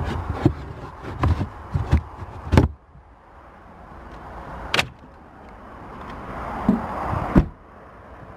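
Clunks and knocks as the carpeted boot floor and trim panels of a Mercedes-Benz SLC200 are handled and set back in place, a single sharp click about halfway, then the boot lid is shut with a solid slam about a second before the end.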